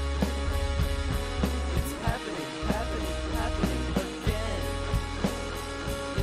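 Lo-fi rock music: a guitar-and-drums band playing with a steady drum beat and a heavy low end.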